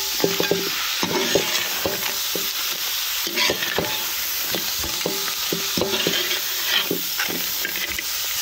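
Blue crabs frying in pepper masala in a large metal pot, sizzling steadily while a flat spatula tosses them, with repeated irregular knocks and clatter of spatula and crab shells against the pot. This is the final toss in pepper powder, just before the pot comes off the heat.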